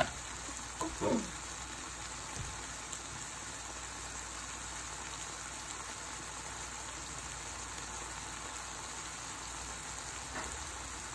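Diced onion, celery and bell peppers sizzling steadily as they sauté in a skillet, nearly softened. A short falling sound comes about a second in.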